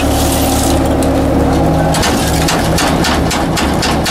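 Garbage truck's diesel engine running with the hydraulics working as the rear hopper's sweep cylinders swing the packer blade back: a steady drone with a hum and whine. From about two seconds in, a string of rattling clicks is heard over it.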